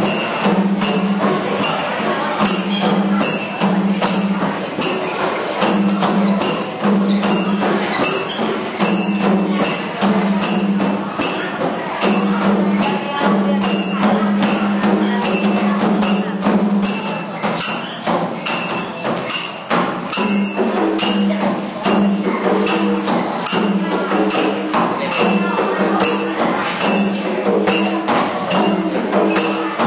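Music with a steady beat of sharp, evenly spaced percussion taps over held low notes.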